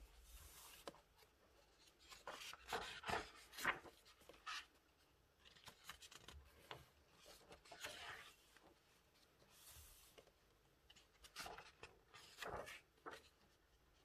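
Faint paper rustling and sliding as the large pages of a photobook are turned by hand, in a few separate spells.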